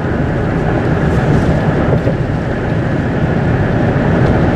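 Car driving at highway speed, heard from inside the cabin: a steady, loud drone of road and engine noise.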